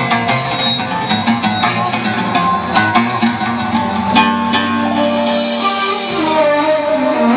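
Instrumental music with no singing: a plucked-string melody over held notes and light percussion hits.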